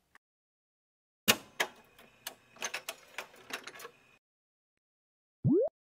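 Intro sound effects: an uneven run of about a dozen sharp clicks and taps over about three seconds, then a short swoop rising in pitch near the end.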